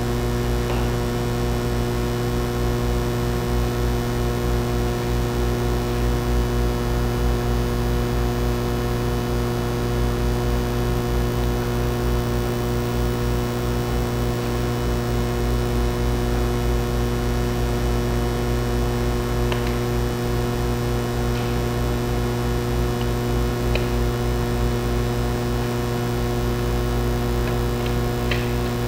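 Steady electrical mains hum, low and buzzy with a stack of even overtones, with a few faint ticks in the second half.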